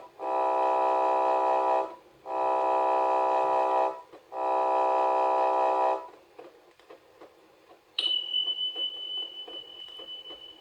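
Electronic emergency-alert tones: three long buzzy beeps of about a second and a half each, evenly spaced. After a short pause, a single steady high-pitched beep starts with a click about eight seconds in and holds.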